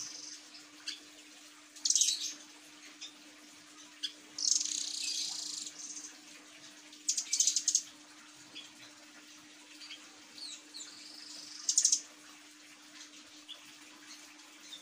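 Blue nuthatch calling: loud bursts of high, rapid chirping notes every few seconds, with single short chirps between them, over a faint steady hum.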